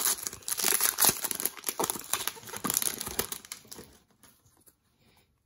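Plastic wrapper of an Upper Deck hockey card pack crinkling as it is torn open, a dense crackling that stops about four seconds in.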